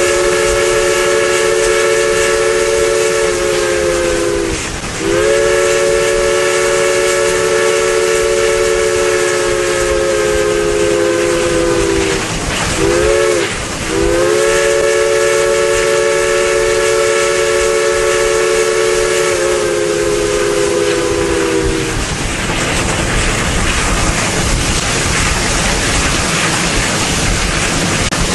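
Steam locomotive's chime whistle sounding several notes at once: a long blast, a longer one, a short toot, then another long blast, each sagging slightly in pitch as it is held. Steam hisses steadily throughout and carries on alone after the last blast.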